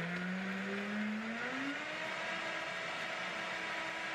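Countertop blender running after being switched on. Its motor pitch rises over the first two seconds, then holds steady as it blends frozen fruit with milk.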